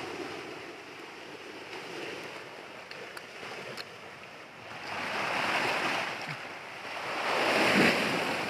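Sea surf breaking against a rocky shoreline, a steady wash that swells into two louder surges, one about halfway through and one near the end.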